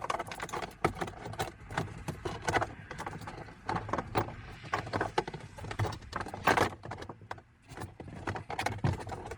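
Irregular clicks, knocks and rattles of seat-belt hardware and plastic interior trim being handled and worked into place, with the loudest knock about six and a half seconds in.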